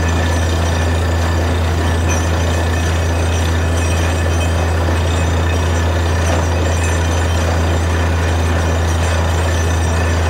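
Truck-mounted borewell drilling rig running steadily under load: a constant low engine and compressor drone with a rushing hiss of air blowing mud and water out of the bore.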